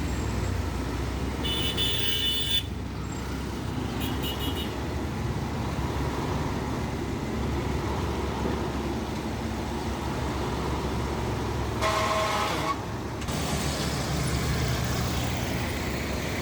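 Steady low engine rumble, with a vehicle horn honking for about a second near the start, a short toot around four seconds in, and another honk about twelve seconds in.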